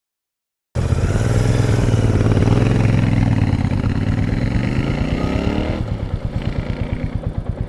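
Motorcycle engine running, its pitch rising and falling for a few seconds, then settling into an even, rapid idle beat about six seconds in. It starts abruptly after a moment of silence.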